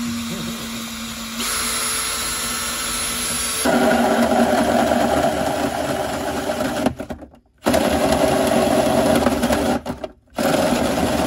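Makita drill spinning a hole saw through the sheet-metal floor pan of a truck, running steadily at first, then cutting louder and coarser from about four seconds in as the saw bites into the metal. It stops briefly twice, around seven and ten seconds in, and starts cutting again each time.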